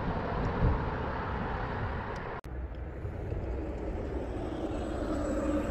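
Steady hum of road traffic passing on a road overhead, with a faint engine tone building near the end and a brief dropout about two and a half seconds in.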